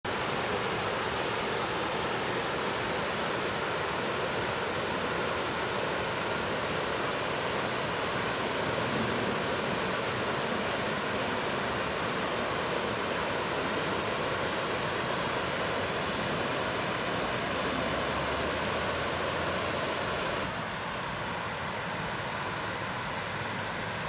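Steady rush of water tumbling over a small waterfall into whitewater. About twenty seconds in, it drops a little in level and turns duller, losing its high hiss.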